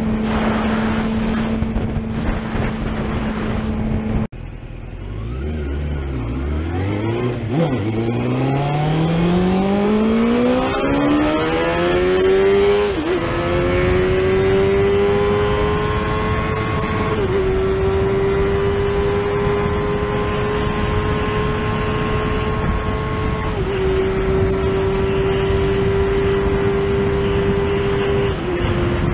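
1996 Suzuki GSX-R 750 SRAD inline-four engine, heard over wind noise. At first it holds a steady note at cruising speed. After an abrupt cut about four seconds in, it accelerates hard: the pitch climbs steeply, then rises more slowly through four upshifts, each a brief dip in the note.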